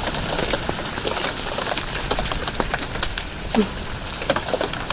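Hail falling with rain: a steady hiss with many sharp, irregular ticks of hailstones striking hard surfaces.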